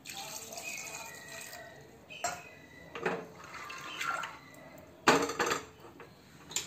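Water pouring from a steel bowl into a pressure cooker of soaked chickpeas for about two seconds, then a few knocks and clinks of steel utensils against the cooker, the loudest about five seconds in.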